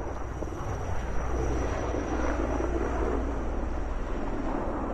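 Firefighting aircraft flying low overhead: a heavy, steady rumble that grows louder about a second in.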